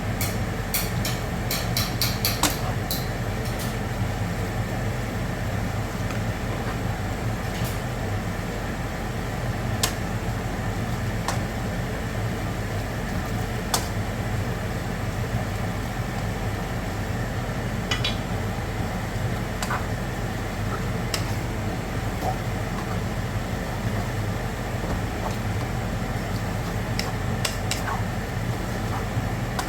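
Steady low mechanical hum with a quick run of sharp clicks in the first few seconds and scattered single clicks and clinks after, as of kitchen utensils.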